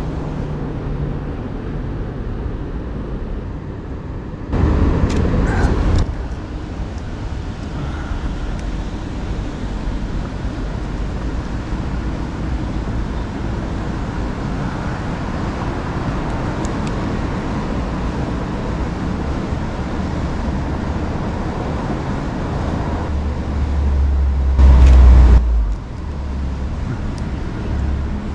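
Street traffic noise: a steady wash of passing cars, with two louder spells of low rumble, one about five seconds in and one a few seconds before the end.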